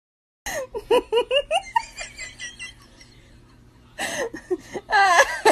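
A person laughing in quick repeated bursts that fade away, then laughing loudly again near the end.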